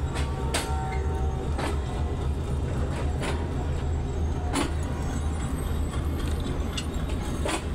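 Passenger train coach rolling slowly out of the station: a steady low rumble with irregular sharp metallic clanks and knocks from the running gear and couplings.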